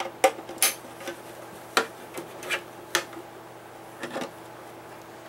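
Irregular sharp clicks and taps of hard plastic as a Ubiquiti UniFi access point and its snap-off back cover are handled while it is readied for its cable, with a last pair of clicks about four seconds in.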